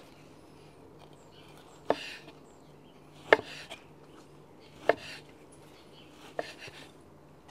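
Chef's knife slicing through grilled steak on a wooden cutting board: four sharp knocks of the blade striking the board, about a second and a half apart, each followed by a brief soft cutting noise.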